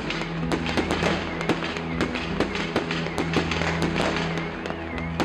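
Fireworks going off, many sharp pops and crackles at irregular intervals, over background music with steady sustained low tones.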